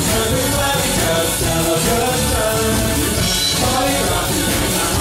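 Live band playing a freestyle dance number: drums, bass guitar and keyboards with a singer's vocal over them, loud and steady.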